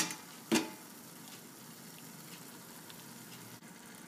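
Onion-tomato masala in oil sizzling faintly and steadily in a steel kadai, with one brief louder sound about half a second in as the mashed roasted eggplant goes into the pan.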